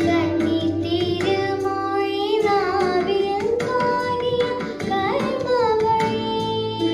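A girl singing a melody into a handheld microphone, with long held notes that slide between pitches, over instrumental accompaniment with a regular percussion beat.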